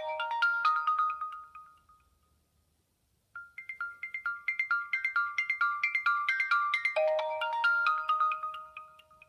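A Nokia 2630 ringtone played on a Sony Ericsson W595 phone: a quick melody of short pitched notes ends about two seconds in. After a pause of about a second, a similar phrase starts and dies away near the end.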